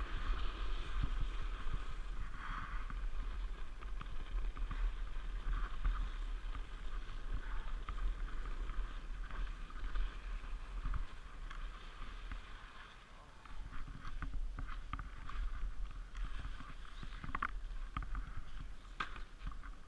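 Toboggan runners sliding and scraping over packed snow, with wind rumbling on the helmet or sled camera's microphone. Short sharp scrapes and knocks come thick and fast in the last few seconds.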